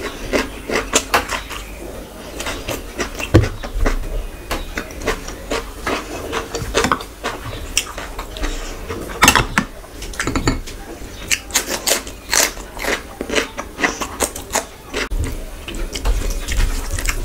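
Close-miked ASMR eating sounds: chewing and mouth sounds, with fingers mixing rice and curry against a plate. The sound is a run of irregular sharp clicks, with no steady background.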